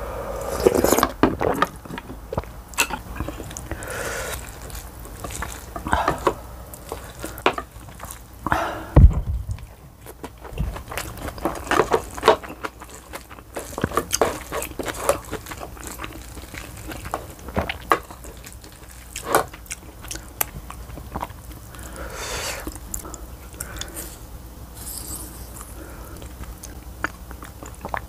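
Close-miked eating: slurping of Shin Ramyun broth and noodles at the start, then chewing and a wooden spoon scraping and clicking in a ceramic bowl while bibimbap is mixed. A single loud thump comes about nine seconds in.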